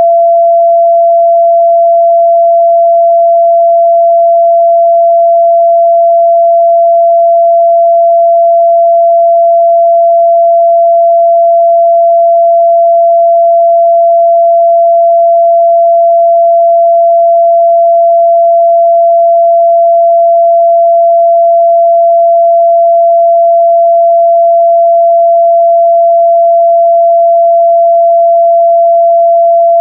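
A steady, loud 678 Hz pure sine-wave test tone, held at one pitch and level without a break.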